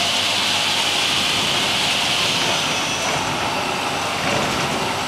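Niigata SPN-50 horizontal machining center running under power, rapid-traversing its X axis. A steady mechanical whir and hiss eases off about halfway through.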